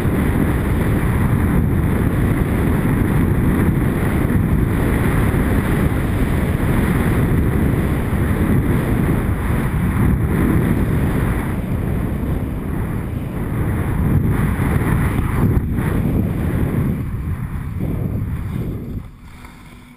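Wind buffeting a GoPro's microphone, with skis running over packed groomed snow during a fast descent. The rushing noise falls away sharply near the end as the skier slows down.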